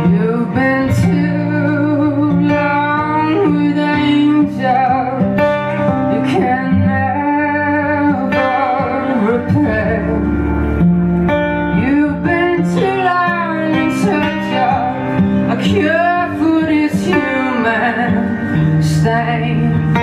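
Live band music: an amplified harmonica solo, played into a handheld microphone, with wavering, bending notes over guitar accompaniment.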